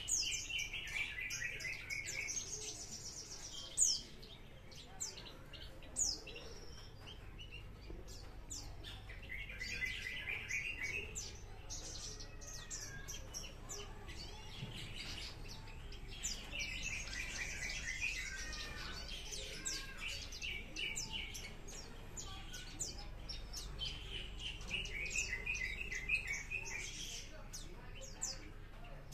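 Young Horsfield's bush lark (branjangan, parva race) singing: fast rattling trills that come back every six or seven seconds, with sharp high chirps scattered between them.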